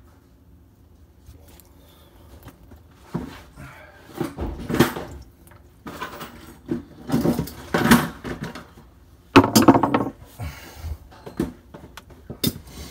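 Handling noise inside a sink cabinet: scattered knocks and clatters of metal parts and tools being moved, loudest in a few separate bursts after a quiet start.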